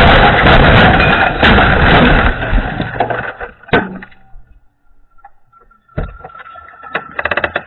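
An SUV crashing over onto a concrete driveway: a loud, continuous crunching and scraping of metal and glass for about three seconds, broken by heavy bangs, with a last bang a little before four seconds, then near quiet. About six seconds in, a new run of clattering noises starts.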